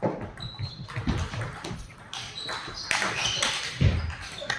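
Table tennis ball being hit back and forth: sharp taps, several with a brief ringing ping, along with a few dull thumps.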